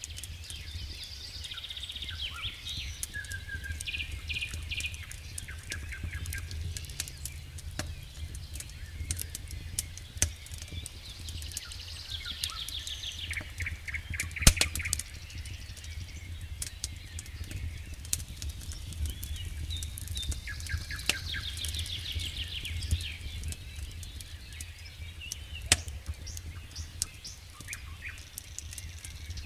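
Wood campfire crackling with scattered sharp pops, the loudest about halfway through and again near the end, while songbirds sing repeated trills. A steady low rumble runs underneath.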